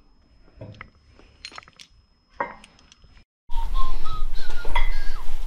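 Steel parts clinking as they are handled, faint at first; after a short break the sound is much louder, with sharper metal-on-metal clanks over a steady low hum as the parts are set up on a hydraulic press.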